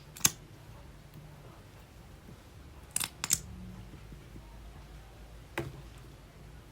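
Several short, sharp clicks over a low, steady background: one just after the start, two in quick succession about three seconds in, and one more near the end.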